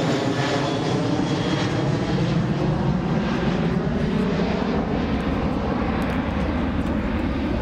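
A loud, steady engine drone made of several evenly spaced low tones, holding its pitch without rising or falling.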